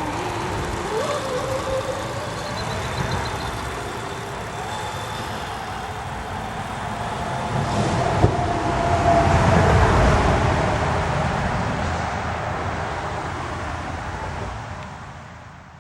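Road vehicle noise: a vehicle passing by, swelling to its loudest about ten seconds in and then fading away.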